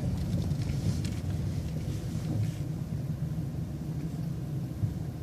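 City transit bus running down the street, a steady low rumble of engine and road noise heard from inside the bus.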